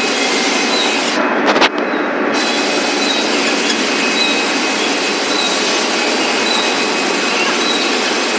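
Cable production machinery running steadily, including a caterpillar haul-off whose chain of metal gripper blocks runs continuously, with a faint high tone recurring every second or so. A couple of clicks come about a second and a half in.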